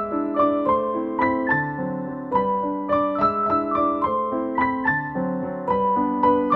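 Background piano music: a gentle melody of single struck notes, a few a second, over lower sustained accompaniment notes.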